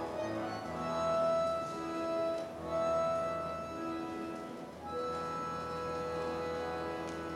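Accordion orchestra playing slow, held chords that swell and fade, with a new chord coming in about five seconds in.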